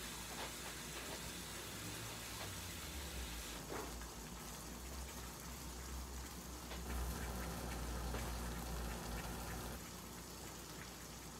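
Fried eggs and bread cooking in butter in a nonstick frying pan on low heat: a soft, steady sizzle with a few small crackles, over a low hum.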